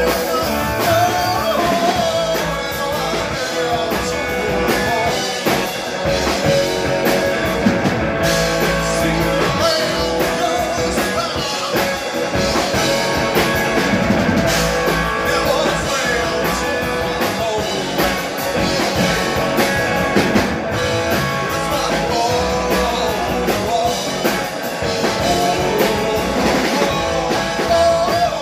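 Live rock band: a man singing over electric guitar and a drum kit, played loud and steady throughout.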